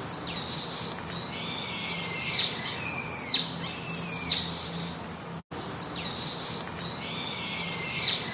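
Bird calls: several overlapping high, drawn-out whistles, each bending downward at its end. The same few seconds of calls play twice, with a brief cut between them.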